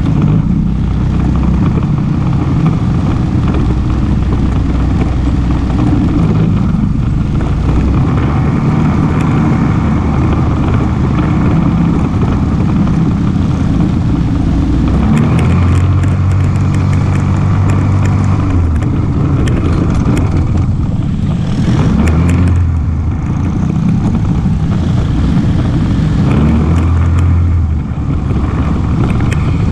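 ATV engine running on a ride, its pitch stepping up and down with the throttle, with a scatter of clicks and rattles about halfway through.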